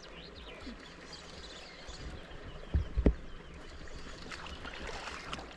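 Water splashing and sloshing at the loch's edge as a hooked pike is played towards the net, with two dull thumps close together about three seconds in.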